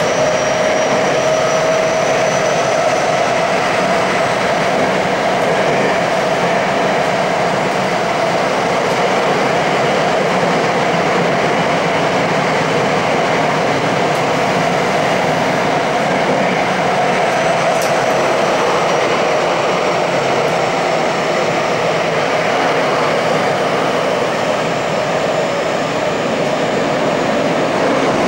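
Tokyo Metro 8000 series subway train running at speed, heard from inside the car: a steady roar of wheels on rail and traction gear. A faint whine drifts slowly in pitch underneath. The car is fitted with Mitsubishi IGBT-VVVF traction control.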